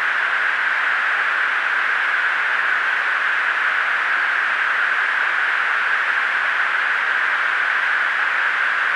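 Steady hiss of static on a military aircraft's intercom recording, with no voices over it.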